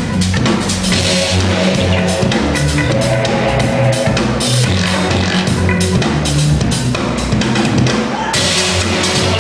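Live percussion music: fast, dense drumming with a steady beat over repeating low pitched notes.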